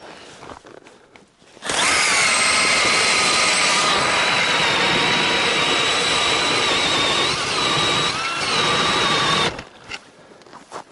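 Cordless drill turning an ice auger through river ice: a steady motor whine that starts abruptly about two seconds in and cuts off near the end, wavering slightly in pitch toward the end.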